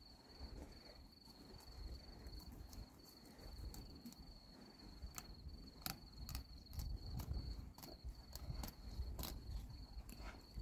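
Crickets chirping in one steady high trill, with scattered sharp clicks and scrapes from a knife filleting a fish on a cutting board, more of them in the second half.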